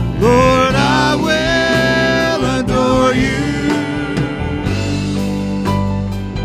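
Live worship band playing: a voice sings held notes over sustained guitar and keyboard chords, then stops about three seconds in while the instruments carry on.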